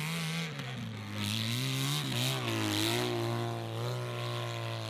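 Off-road motorcycle engine revving hard as the bike climbs a steep dirt slope. Its pitch dips, then rises and wavers with the throttle, then holds high and steady.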